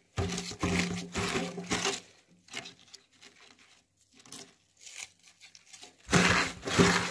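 Hands tossing and squeezing torn cabbage leaves and spring onions in a stainless steel sink, the leaves crunching and rustling in uneven bursts. It is louder for the first two seconds, softer in the middle and louder again near the end.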